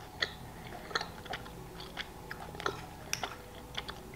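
Close-up chewing of a soft, chewy chocolate candy with the mouth closed: faint, irregular wet clicks.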